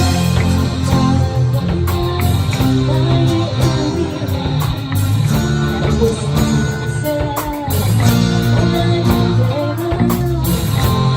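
A band playing rock music with guitar, a strong bass line and a steady beat, with singing at times.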